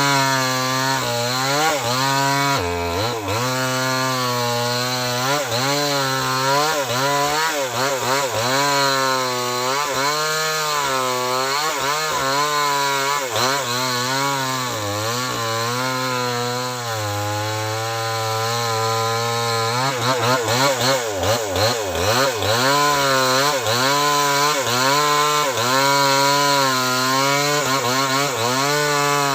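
Small two-stroke chainsaw running at high throttle while cutting into a very large tree trunk, its pitch repeatedly sagging and recovering as the chain bogs down in the wood.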